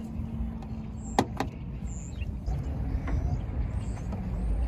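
Plastic push-pin clips and the upper radiator cover of a 2016 Ford Mustang snapping loose as they are pried off by hand: two sharp snaps in quick succession about a second in, over a low steady rumble.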